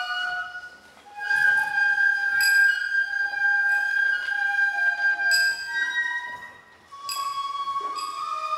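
Shishimai lion-dance flute music: a Japanese bamboo transverse flute (shinobue) playing a slow melody of long held notes, with short breaks about a second in and again near seven seconds.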